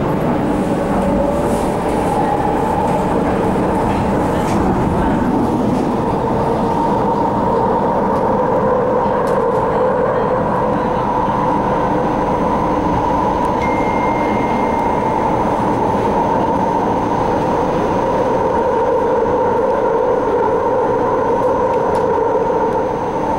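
MTR Ma On Shan line C-Train electric multiple unit running between stations, heard from inside the car. There is a steady rumble of wheels on the track under a held electric motor whine.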